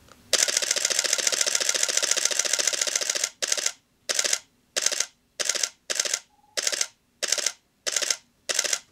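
Canon 7D DSLR shutter and mirror firing in high-speed continuous drive: a rapid unbroken run of clicks for about three seconds, then short two-frame bursts roughly every two-thirds of a second. The change to short bursts is the camera's buffer filling, so it can only fire as fast as the images are written to the CF card.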